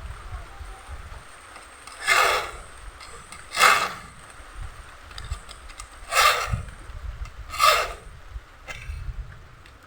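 Hand file being pushed across the teeth of a crosscut hand saw to sharpen it: four separate strokes, in two pairs about a second and a half apart.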